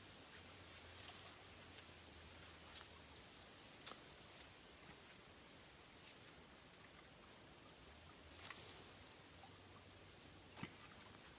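Faint, steady high-pitched insect trilling on two pitches, with a few sharp clicks and a short rustle about two-thirds of the way in.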